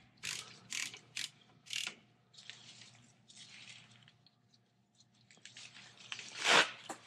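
Hand tools working metal on a brake caliper's brake line fitting: a few short ratcheting, scraping strokes in the first two seconds, softer scraping after, and one louder rasp near the end.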